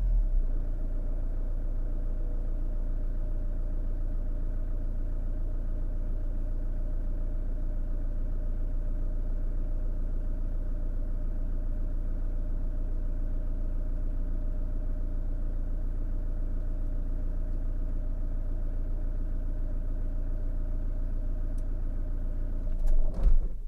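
Renault Master 2.8 dTi van's four-cylinder turbodiesel idling steadily, heard from inside the cab. Near the end it shakes briefly as it is switched off, and the engine note cuts out.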